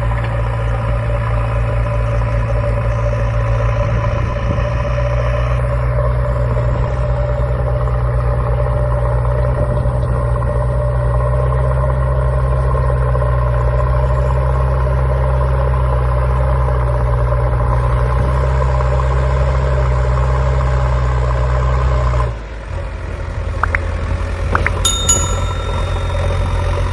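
Steady engine running sound, an even idling drone, while the toy excavator digs; its deepest part drops out about 22 seconds in. Near the end a few light clicks and a short bell-like ding.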